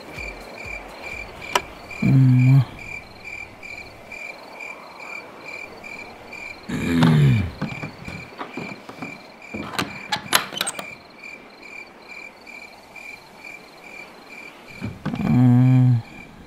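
Crickets chirping steadily, a high pulse about three times a second. Over them, a man makes short low vocal sounds about two seconds in and again near the end, with a longer falling groan around seven seconds. A few sharp clicks come around ten seconds in.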